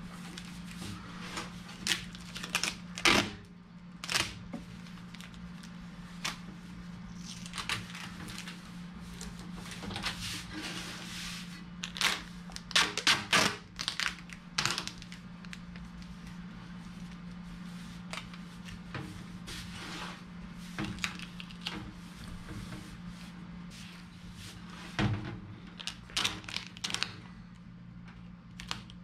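Hands working on galvanized sheet-metal duct and a booster-fan housing: irregular clicks, taps and knocks with short rustles, over a steady low hum.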